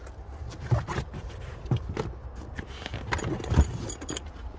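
Camping gear being handled in a car trunk: a soft cooler bag is lifted by its strap off a plastic storage tote. There are irregular knocks and thumps as the bag and tote bump, with the strap's metal buckle clinking, the loudest thump about three and a half seconds in.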